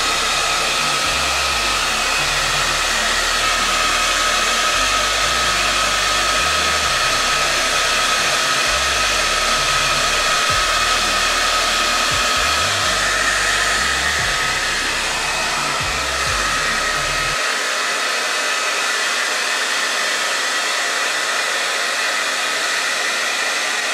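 Handheld hair dryer blowing steadily, a constant rush of air with a steady motor whine, drying a wet puppy's coat. A low uneven rumble under it stops about two-thirds of the way through.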